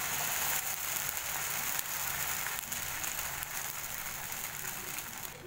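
Uttapam batter sizzling in a hot, oiled pan, a steady hiss that slowly gets quieter.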